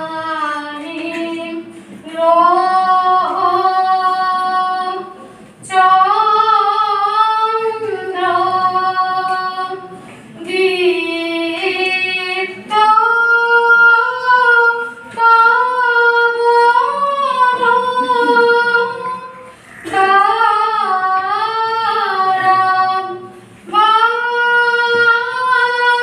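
A high voice singing a melody without accompaniment, in a string of phrases two to three seconds long with short breaks between them.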